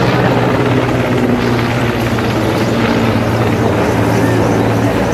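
Indian Air Force Mi-17 helicopter flying overhead, its main rotor and turbine engines making a steady drone.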